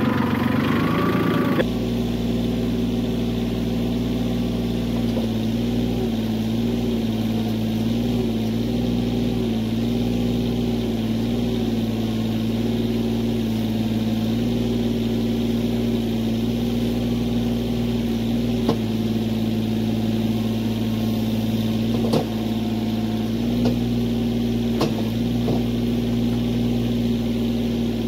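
Tractor engine running at a steady speed, its note wavering slightly, with a few short knocks.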